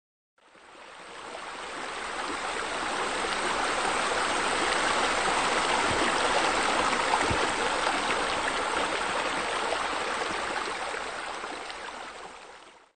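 Water from sheer descent water features spilling into a pool: a steady rush of falling water that swells up over the first few seconds and fades away near the end.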